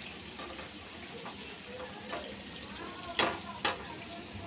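Jalebi batter deep-frying in hot oil: a steady sizzle, with two sharp knocks a little past three seconds in.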